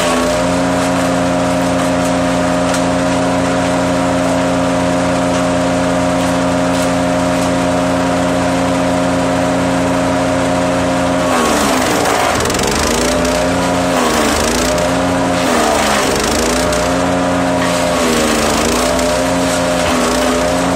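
Petrol wood chipper's engine running at a steady high speed. From about eleven seconds in, its pitch dips and recovers again and again, roughly every two seconds, over a rougher chipping noise: the engine bogging under load as wood is fed through.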